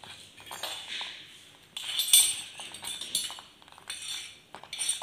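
Wooden spatula stirring thick millet sweet pongal in a metal pressure cooker pan, scraping and clinking against the pot in several uneven strokes.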